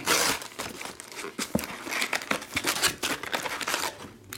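Foil trading-card packs crinkling and rustling as a stack of them is pulled out of an opened cardboard box, with small clicks of cardboard and foil throughout.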